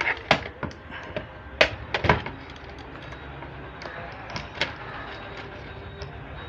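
A series of sharp plastic clicks and knocks as wiring connectors are plugged into a washing machine control board and the parts are handled. The loudest clicks come in the first two seconds, with fainter ticks later.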